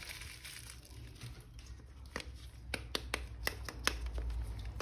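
Hands handling a plastic toy figure and its packaging: faint crinkling, then a quick run of sharp plastic clicks in the second half.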